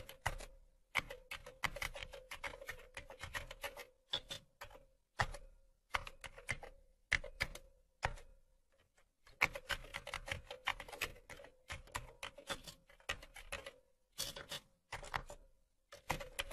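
Keyboard typing: rapid, irregular key clicks in uneven runs with short pauses, a longer break about halfway through, over a faint steady tone.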